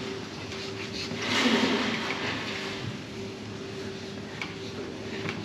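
Marker scratching on a whiteboard in several short strokes, the loudest about a second in, over a steady hum in the room.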